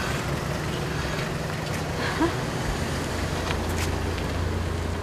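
Diesel pickup truck's engine running with a steady low hum as the truck drives slowly along the street.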